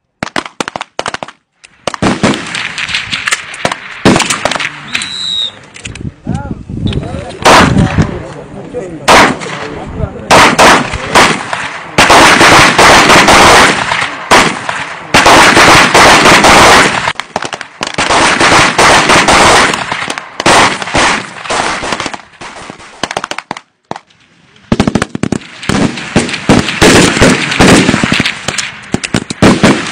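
Gunfire on a shooting range from several pistols and rifles: many sharp shots, some single and some in quick overlapping strings. The firing is densest in the middle and again near the end, with a brief lull shortly before the end.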